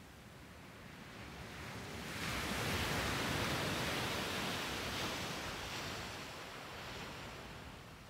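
A small ocean wave breaking on a sandy beach and washing up the shore. The rush swells about two seconds in and slowly fades toward the end.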